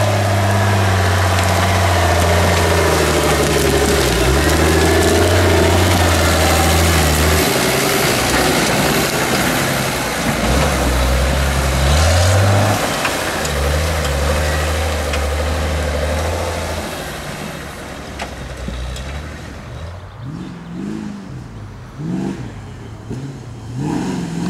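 Engine of a modified off-road Jeep crawling over rocks, holding low steady revs in long pulls with short breaks and one quick rise. In the last seconds a quieter engine revs up and down in several short blips.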